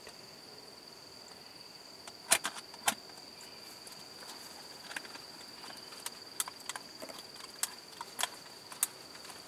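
Steady high-pitched insect drone, broken by a scatter of short sharp clicks, the loudest two a little over two seconds in and the rest spread through the second half.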